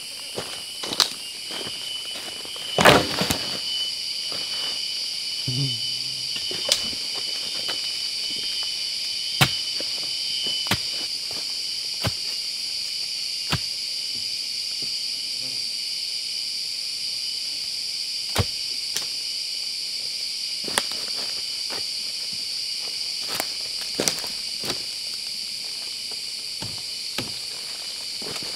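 Steady high-pitched chorus of forest insects, with scattered sharp snaps and knocks from footsteps in leaf litter, the loudest about three seconds in.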